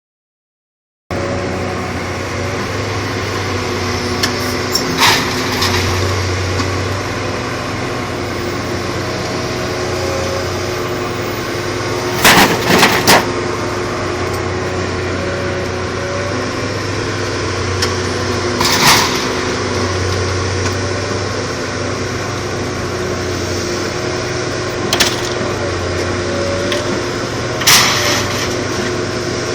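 Machinery running with a steady hum, broken by loud bangs: one about five seconds in, a quick cluster around twelve seconds, and single ones every six seconds or so after that.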